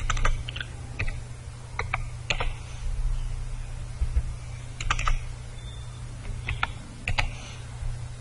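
Computer keyboard being typed on: irregular key clicks, some in quick little clusters, over a steady low hum.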